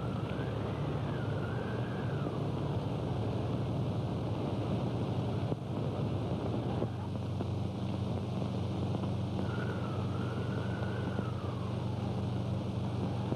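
Storm wind sound effect: a whistling howl that rises and falls twice, over the steady low hum and hiss of an old film soundtrack.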